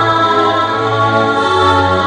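Background music of slow, long-held chords, with a choir-like or organ-like sound.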